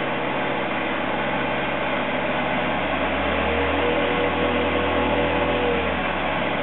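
Van de Graaff generator's motor running with a steady whirring hum. A deeper hum swells for a few seconds in the middle.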